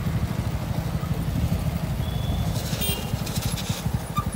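Motorcycle engine running at low speed, a steady, rapid low putter.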